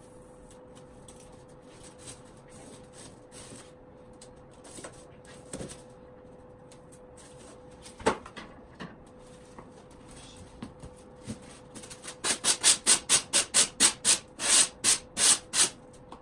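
Quick back-and-forth rubbing strokes on a black craft board, about three to four a second over the last four seconds, as the board is trimmed to shape. Before them come scattered light knocks from handling the board, with one sharper knock about eight seconds in.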